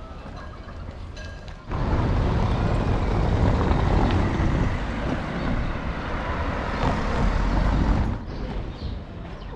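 Outdoor traffic noise: a car driving along the street, a loud, dense rumble of engine and tyres. It comes in suddenly about two seconds in and cuts off just as suddenly about eight seconds in.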